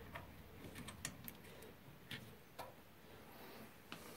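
Faint, scattered light clicks and ticks of a small screw being turned out by hand and lifted from a washing machine's plastic drain trap housing.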